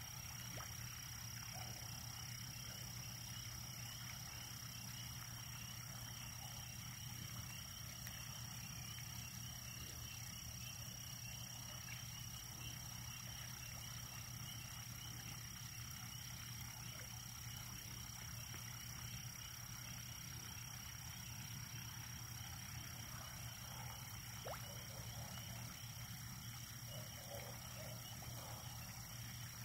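Faint, steady chorus of frogs calling from the pond, a dense high-pitched trilling, over a constant thin high whine.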